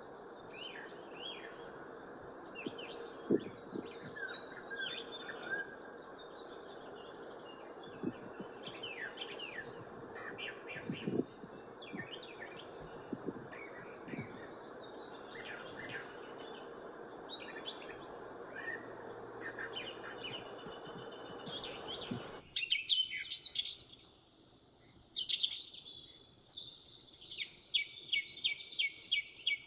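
House finches chirping and twittering, with short calls throughout over a steady background hiss. About three-quarters of the way through the hiss stops abruptly, and the chirping turns louder, with rapid trills.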